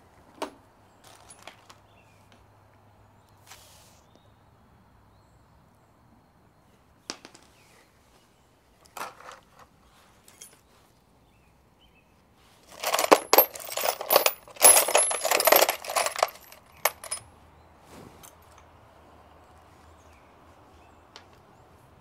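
Small loose metal parts clinking: a few single clinks and taps, then about four seconds of dense metallic rattling and jingling as the pieces are rummaged through and handled, the loudest stretch, past the middle.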